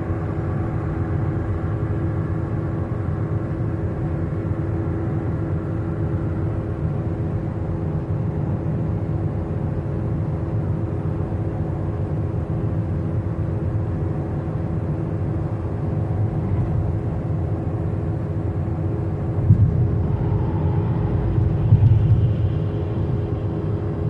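Steady road noise inside a moving car's cabin: a low tyre-and-engine drone with a constant hum, swelling briefly louder twice near the end.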